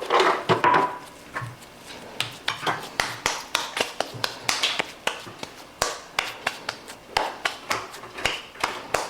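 Hands patting and slapping a ball of masa flat to shape a pupusa, a run of short sharp slaps about two or three a second, with a brief clatter of kitchenware in the first second.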